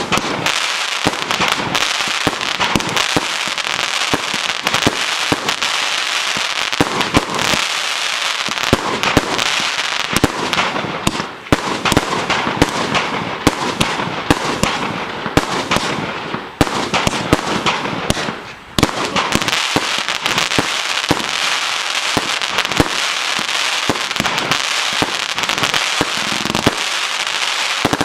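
A 100-shot 30 mm (1.2-inch) consumer firework cake firing shot after shot: a dense, continuous stream of sharp launch reports and crackling bursts. There are brief lulls about 11, 16 and 19 seconds in.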